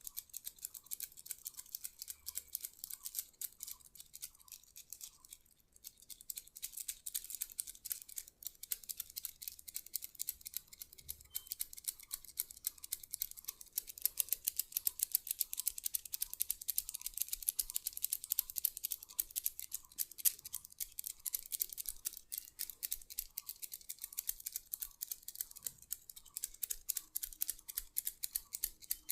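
A massage tool worked over skin in quick repeated strokes, about two a second, making dense fine scratchy clicking. There is a brief break about six seconds in.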